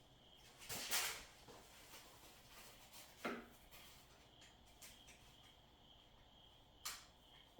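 Items being handled: a short rustle about a second in, then two sharp knocks a few seconds apart, over a faint steady high-pitched tone.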